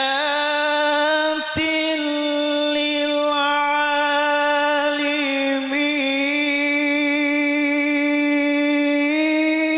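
A man's voice reciting the Quran in melodic tilawah style through a microphone, holding long notes with small ornamental turns, on the verse 'inna fi dhalika la-ayatin lil-'alamin'. A brief low thump sounds about a second and a half in, and the pitch drops near the end.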